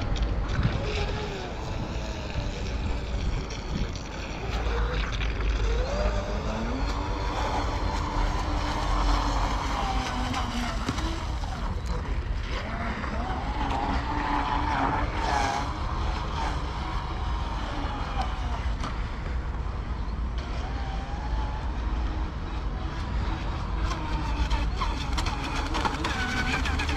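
Joysway Bullet RC speedboat's electric motor whining, its pitch rising and falling as the throttle changes while it runs over choppy water, under a steady low rumble of wind on the microphone.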